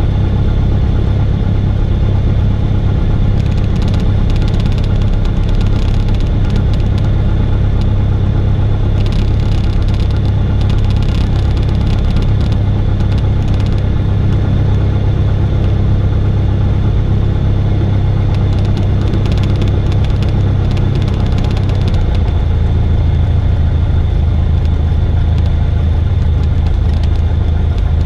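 Cessna 172R's four-cylinder Lycoming engine and propeller at taxi idle, heard inside the cabin as a steady low drone. About 22 seconds in the engine speed drops a little and the drone lowers in pitch.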